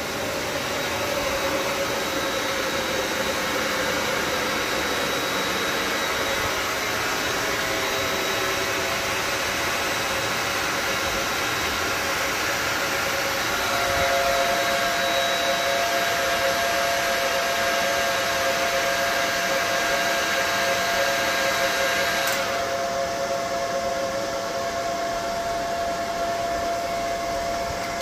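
Cooling fans of EG4 6000XP inverters running flat out under overload: a loud, steady rush of air with a steady whine. A second, slightly higher whine joins about halfway through, and the upper hiss drops off suddenly about 22 seconds in.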